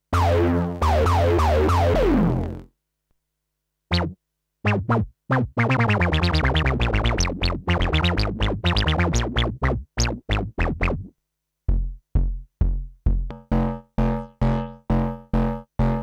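Korg Monologue monophonic analog synthesizer playing bass-heavy notes: held notes with falling sweeps, a short pause, then a fast run of short plucked notes, ending in a steady pattern of short notes about three a second.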